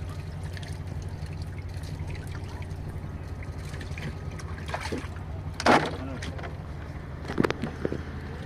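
A motor on a small fishing boat hums steadily and low, while water sloshes and trickles on the wet deck underfoot. A short voice is heard a little past the middle.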